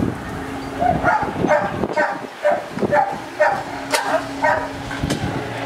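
Dogs barking over and over, about two to three short barks a second.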